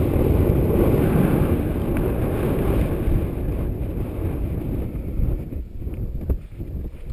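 Wind buffeting the camera microphone: a heavy, low rumble that eases off after about four seconds, with a few light knocks near the end.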